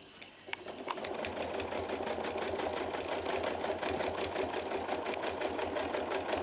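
Domestic sewing machine free-motion quilting. It starts stitching about a second in, then runs at a steady, even speed with a rapid, regular needle rhythm.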